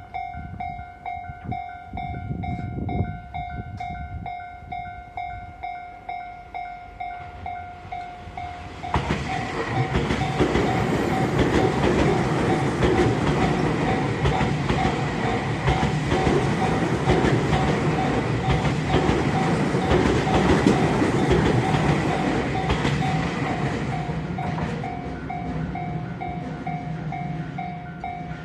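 Japanese level-crossing alarm bell ringing its repeated electronic ding, about one and a half strokes a second. About nine seconds in, a train passes over the crossing, its noise swelling over the bell for some fifteen seconds and fading near the end while the bell keeps ringing.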